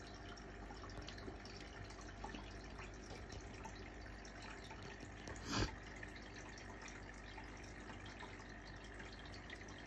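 Aquarium filter water trickling steadily with small drips, with one short knock about halfway through.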